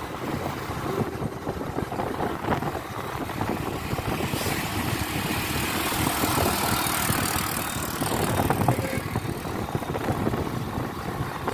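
A motor vehicle's engine running on the move, with wind rushing over the microphone; the hiss grows louder for a few seconds in the middle.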